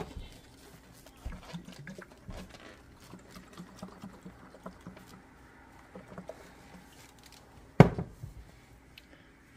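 Hot compote in lidded glass mason jars being handled: a cloth towel rubbing over the jars and liquid sloshing inside a jar as it is tipped, with faint clicks. About eight seconds in, a sharp knock as a glass jar is set down on the countertop.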